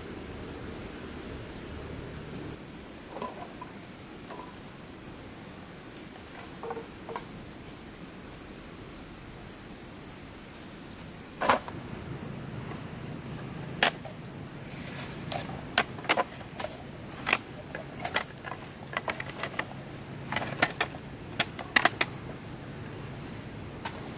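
Dry sticks and branch pieces knocking and clattering against each other as they are picked up and laid on a woodpile, a dozen or so sharp knocks starting about halfway in. Under it a steady high insect buzz, like a cricket or cicada, carries on throughout.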